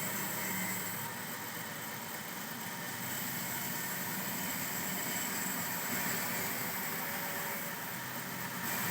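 A machine running steadily with an even hum, with no cuts or knocks standing out.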